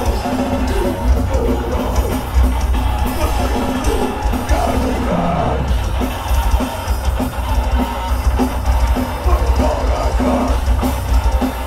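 Heavy metal band playing live: distorted electric guitar, bass guitar and a Tama drum kit together, loud and dense with a heavy low end.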